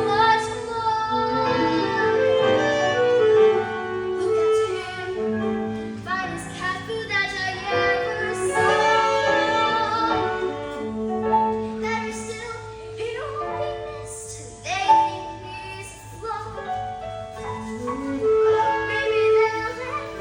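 Musical-theatre song: voices singing over an instrumental accompaniment.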